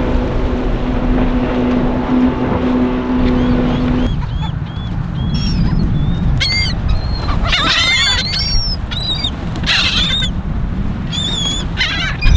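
A motorboat engine runs with a steady hum over a low rumble of wind and water, then cuts off abruptly about four seconds in. After that, many birds call in quick, high, chirping bursts, clustered together and overlapping.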